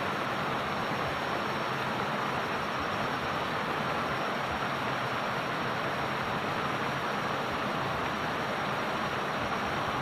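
Small stream running past rocks and a concrete weir: a steady, even rush of water.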